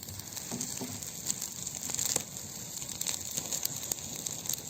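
Small wood campfire crackling, with scattered sharp pops over a steady high hiss.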